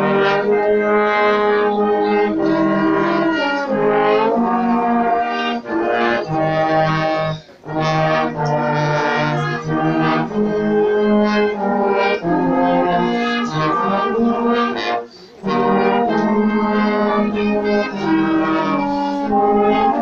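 Trumpet choir, a brass ensemble, playing in full sustained chords. Short pauses between phrases come about seven and fifteen seconds in.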